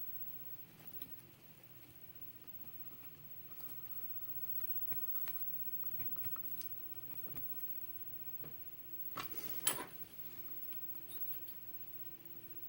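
Faint, scattered metal clicks and taps as a shim is worked into a Sargent IC lock core to pull the plug, with a louder pair of clacks about nine seconds in.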